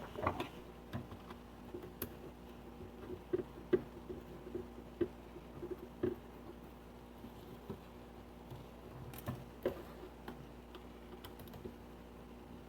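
Scattered light clicks and taps of small plastic parts and a circuit board being handled as the board is taken out of a small portable speaker's opened case, irregular and a few to the second at most.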